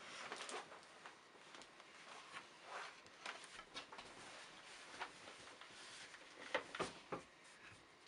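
Faint scattered clicks and soft rustles over quiet small-room tone, with a few sharper clicks about six and a half to seven seconds in.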